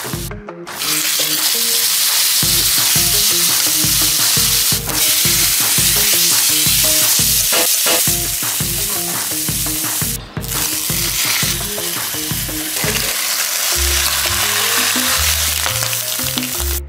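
Bacon strips, chicken and then sliced ham sizzling in a hot nonstick frying pan greased with butter, a steady dense hiss that starts about a second in and breaks briefly about ten seconds in.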